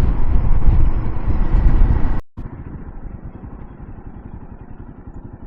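Riding noise of a Royal Enfield Himalayan 450 on the road: a loud steady low rumble of wind and engine. About two seconds in it cuts off abruptly to a much quieter steady rumble.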